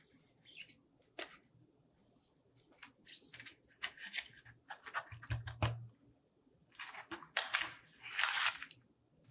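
Paper-card backing of a flash drive's blister pack being torn and peeled apart in several separate rips, the longest and loudest near the end, with a dull low bump about halfway through.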